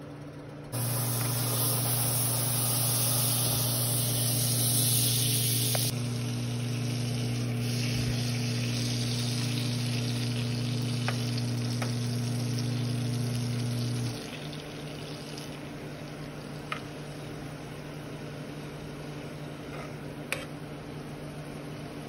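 A stick of butter sizzling and bubbling as it melts in a hot nonstick pot, pushed about with a fork that clicks against the pan a few times. The hiss is strongest in the first few seconds. A steady low hum runs underneath and stops a little past halfway.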